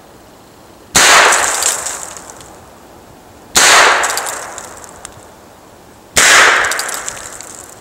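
Three .22 Long Rifle shots from a Heritage Rough Rider single-action revolver, about two and a half seconds apart, each fading away over about a second and a half.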